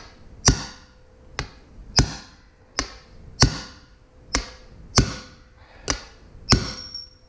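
Hammer blows on a Harbor Freight hand impact driver seated on a bolt in a trailer brake-drum hub: about nine sharp metallic strikes, roughly one every 0.7 s, each with a short ring. The bolt is being driven to break it loose.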